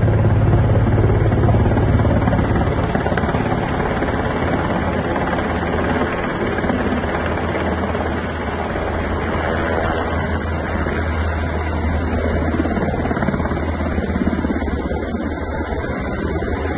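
Black Hawk–type military helicopter flying in low and descending to land, its rotors and engines making a steady loud noise with a strong low hum, loudest in the first few seconds.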